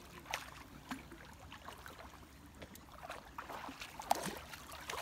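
Shallow river water sloshing and splashing as an Akita puppy wades and pushes its head down into the water, a scatter of small irregular splashes with a louder one about four seconds in.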